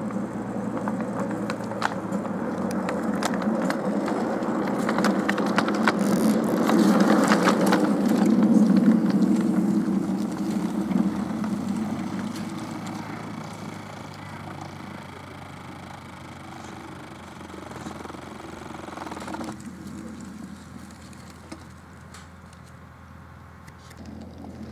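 Miniature railway train passing close by: its steel wheels rumble and click over the rail joints, growing louder to a peak about eight seconds in, then fading as it moves away.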